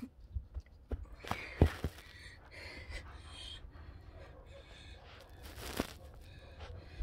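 Handling noise from a phone being moved and propped up on a carpeted floor: scattered knocks and thumps, loudest about a second and a half in, with a sharp click near the end and rustling of movement in between.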